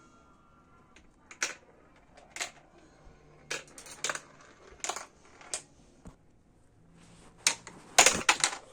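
Sharp plastic clicks and clacks from a MarbleWorks marble run, coming about once a second, then a louder quick clatter near the end.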